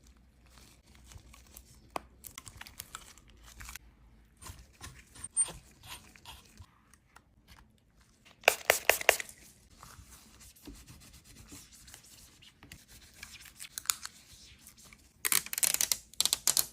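Handling noises from smartphone repair work: scattered small clicks and taps, and two louder rasping bursts of tearing, about eight seconds in and again near the end.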